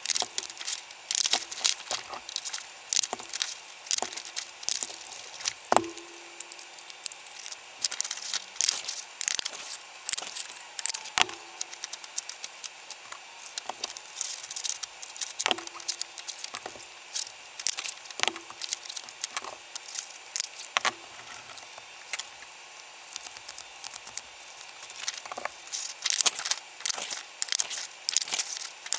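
Handheld paper circle punch cutting circles out of brown paper, clicking again and again, with paper rustling and sliding between strokes. Several louder snaps have a short ring.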